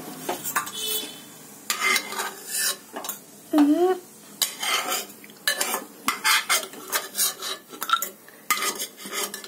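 A metal slotted spoon scrapes and clinks against an aluminium pressure cooker as fried cashews and almonds are scooped out of the ghee and dropped into a steel bowl. The sharp scrapes and clinks come again and again.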